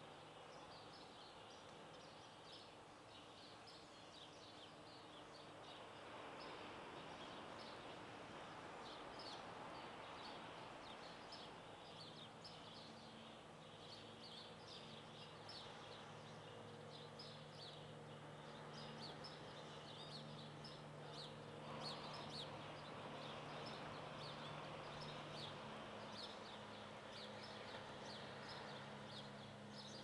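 Faint chirping of many small birds, dense quick chirps with no pause, over a soft even background wash. A low steady hum joins in about halfway through.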